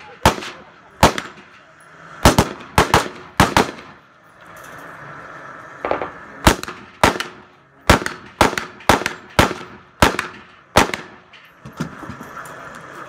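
Rifle gunshots in quick single shots, roughly two a second, with a pause of about two seconds a little after four seconds in before the shooting resumes.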